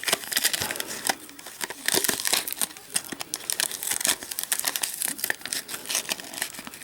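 Packaging of a new Master Lock padlock crinkling and tearing as it is pulled open, a busy run of irregular crackles and snaps.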